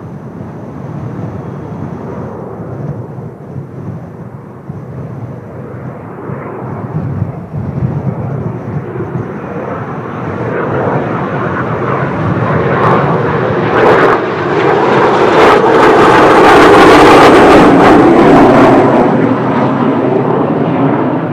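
Kawasaki T-4 jet trainers' turbofan engines growing steadily louder as they approach and pass, loudest about three-quarters of the way through, then starting to fade.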